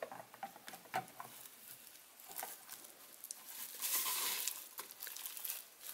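Faint handling noises: small clicks and taps as a circuit board is fitted into a plastic junction box and USB cables are pressed onto its connectors, with a short crinkly rustle of bubble-wrap packing about four seconds in.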